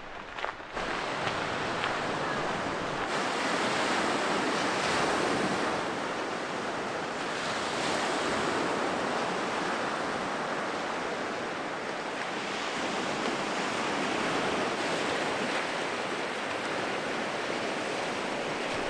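Small sea waves breaking and washing up on a cobble beach. The surf sound swells and eases every few seconds.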